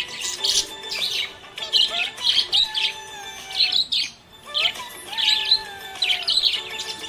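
Budgerigar chirping in quick clusters of sharp high chirps, with a brief lull about four seconds in.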